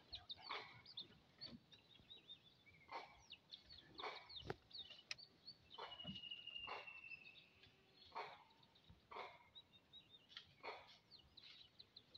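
Faint forest birdsong: many quick chirps and twitters, with one drawn-out steady whistle about six seconds in, over soft scattered clicks.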